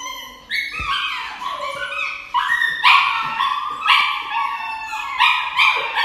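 A dog crying out in distress while held for an injection: a rapid run of high yelping and howling cries, each under a second, several falling in pitch.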